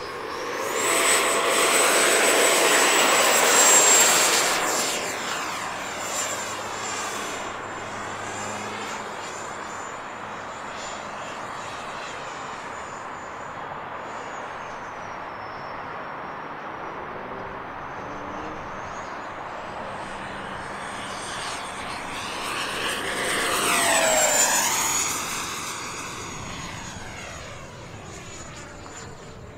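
E-flite F-18 Hornet's 80mm electric ducted fan running with a high whine and rushing air as the jet takes off and flies. It is loudest over the first few seconds at full power. The whine sags and recovers in pitch midway, then swells again and drops in pitch as the jet passes close, near the end.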